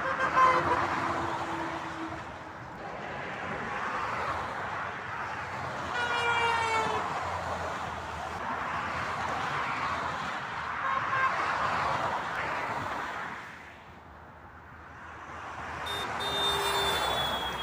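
Motorway traffic passing, tyre and engine noise swelling and fading, with passing vehicles sounding their horns: one at the start, one about six seconds in that drops in pitch as it goes by, and another near the end.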